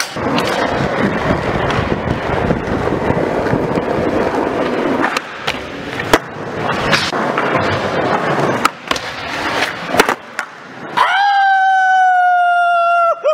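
Skateboard wheels rolling over a smooth indoor concrete floor, with sharp clacks of the board popping and landing. About eleven seconds in, the rolling stops and a steady high-pitched tone takes over, drifting slightly lower.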